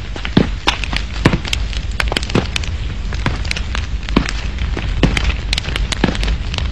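Dense crackling: irregular sharp snaps, several a second, over a low steady rumble.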